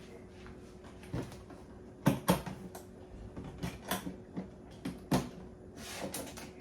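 Knocks and clunks of a sewing machine and its parts being handled and set down on a table, about eight sharp strokes with the loudest pair a little after two seconds in and another near five seconds, over a faint steady hum.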